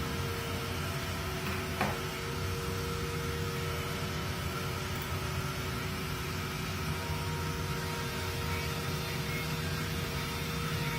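Roland DWX-52DC dental milling machine running with a steady whirring hum, and a single short click about two seconds in.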